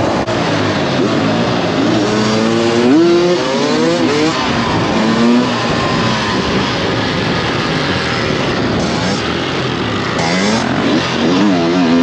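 Dirt bike engine running hard, the revs climbing and dropping several times as it accelerates and shifts, with the strongest run-ups a few seconds in and again near the end.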